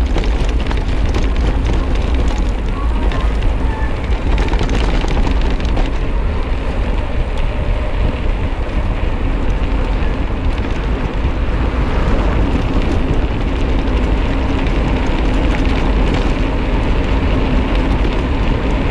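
Steady wind rushing over the microphone of a camera on a moving bicycle, a constant low rumble with no break.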